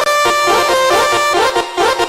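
Telolet horn, a multi-tone horn playing a quick melody of pitched notes that step up and down several times a second.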